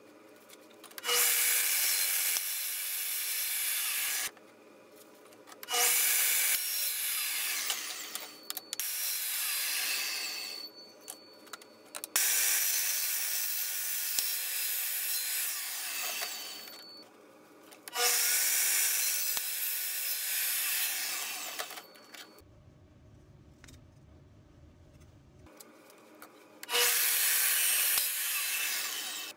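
Bosch metal cut-off saw cutting thin-walled steel square tubing: several cuts of a few seconds each, starting abruptly, with short pauses between them. The cutting is loud and high-pitched.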